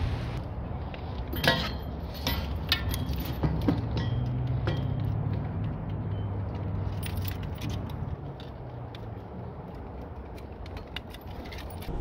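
Metal clinks and rattles of a bike lock being fastened around a metal pole, scattered sharp clinks over a steady low hum.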